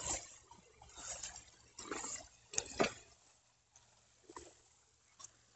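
Footsteps brushing through wet grass and weeds on a paddy bund: a few short, irregular rustles, most of them in the first three seconds, then fainter.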